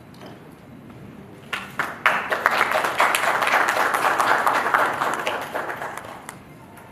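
Applause: a few scattered claps about a second and a half in, quickly swelling into steady clapping that dies away about six seconds in.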